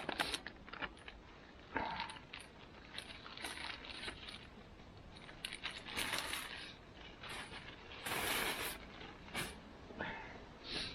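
Handling noise as something is wrapped up by hand: irregular rustling and crinkling with scattered small clicks and knocks. The longest and loudest rustle comes about eight seconds in.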